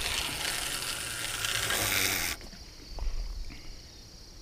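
Fishing line hissing off a spinning reel's spool as a cast carp rig flies out over the water, cutting off sharply about two seconds in; a single click follows about a second later. A steady chirr of crickets sits underneath.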